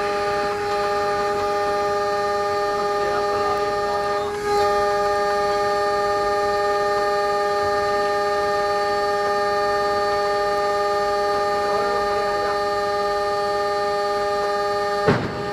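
Locomotive air horn held in one long, steady multi-note blast as a warning to a donkey cart on the track ahead, cut briefly about four seconds in and again near the end, over the running noise of the train at speed.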